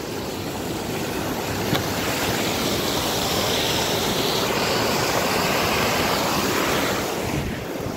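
Waterfall rushing, really loud: a steady noise of pouring white water that swells about two seconds in and eases slightly near the end.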